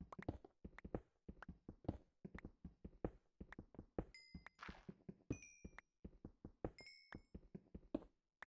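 Faint, irregular knocks and taps, several a second. About halfway through come a few short high-pitched tones and a brief hiss.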